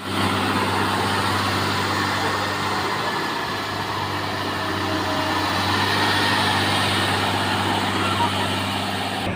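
Heavy diesel engines of road-construction vehicles running steadily, with a constant low hum under a broad mechanical noise.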